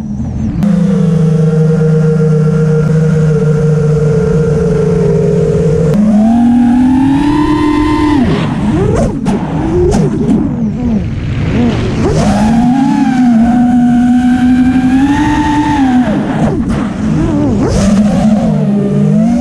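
FPV quadcopter's brushless motors and propellers whining, heard from the onboard camera, the pitch following the throttle. The whine holds steady at first, climbs about six seconds in, wavers up and down quickly for a few seconds, holds again, then dips near the end.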